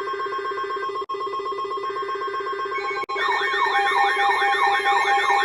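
Electronic emergency alert tones: a steady, fast-warbling ringing tone, joined about three seconds in by a siren that sweeps quickly up and down over a steady tone.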